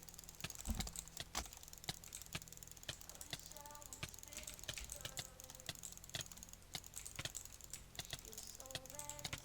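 Rapid, irregular clicks, with a dull thump just under a second in.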